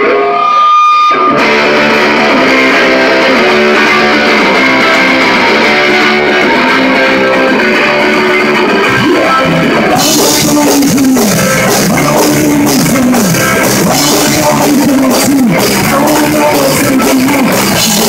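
Live rock band playing loud: electric guitars, bass and a drum kit. A single held guitar note opens, and the full band comes in a little over a second in. From about halfway a sung vocal is heard and the cymbals are louder.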